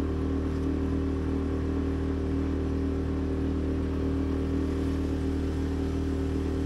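The small sailboat's engine running steadily under way at an even pitch, a constant low hum.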